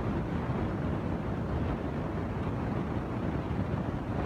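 Tractor diesel engines working hard under heavy load as a Mahindra tractor and a homemade tractor, chained together, pull against each other in a tug-of-war. The sound is a steady, low engine drone.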